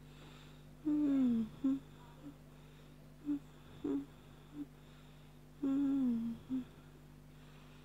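A woman humming wordlessly: two longer notes that fall in pitch, about a second in and again near six seconds in, with a few short hummed notes between them. A steady low electrical hum runs underneath.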